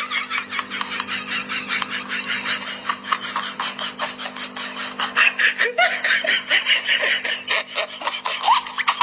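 Rapid, continuous staccato laughter over a steady low hum.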